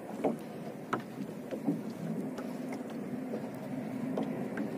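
Small wooden fishing boat at sea while a longline is hauled in by hand: a steady low hum with scattered light knocks and taps.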